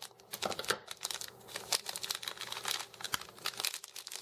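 Plastic fruit snack pouch crinkling in the hands as it is pulled open and the gummies are worked out, a run of irregular crackles.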